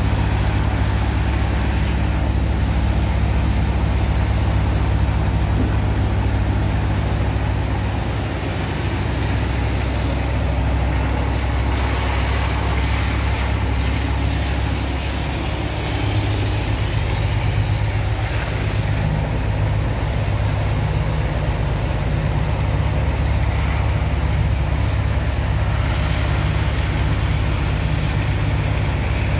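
Steady low drone of the engine-driven sand pump on a sand-unloading barge, under the rushing hiss of a water hose jet washing sand into slurry.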